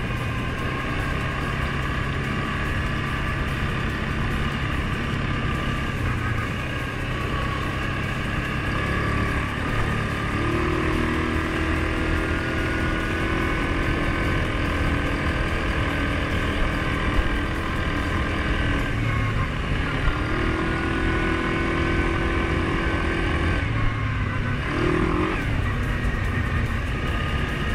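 Suzuki KingQuad 750 ATV's single-cylinder engine running steadily while riding a dirt trail, its pitch shifting now and then, with a couple of brief knocks in the middle.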